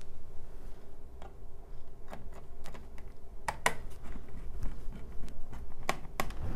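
Scattered sharp clicks and taps of a 2.5-inch SSD being seated in a Lenovo G50-70 laptop's drive bay and a small screwdriver working its mounting screw. The loudest clicks come a little past halfway and twice more near the end.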